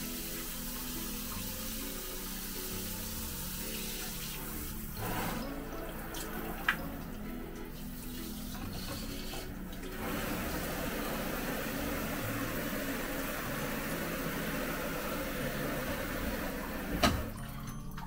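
Water spraying steadily from a newly installed RVIEN handheld shower head, a continuous hiss, with background music beneath. A sharp click about seven seconds in and another near the end.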